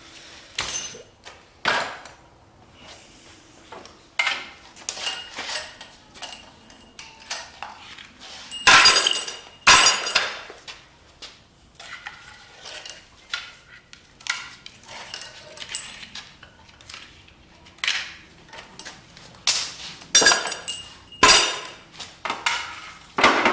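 Metal tools and engine parts clinking and clanking during the hand teardown of a 5.3 LS V8: a string of sharp metal knocks, some of them ringing, with the loudest clanks about nine seconds in, around twenty seconds, and again near the end.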